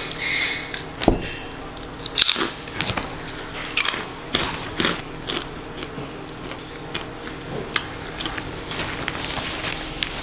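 A person biting into and chewing a crunchy puffed snack: a run of sharp, separate crunches spread through the whole stretch.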